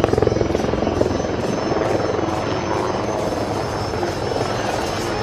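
HAL Prachand light combat helicopter in flight: the rapid, even beat of its main rotor with a thin high whine from its turboshaft engines, slowly fading.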